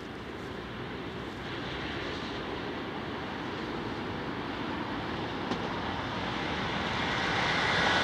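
Passenger train hauled by a DB class 218 diesel locomotive approaching, its diesel engine and running noise growing steadily louder.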